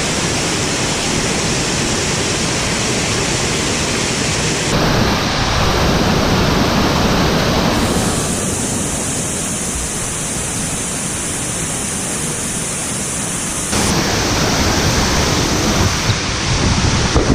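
Waterfall water rushing as a loud, steady wash of noise, its tone shifting abruptly three times.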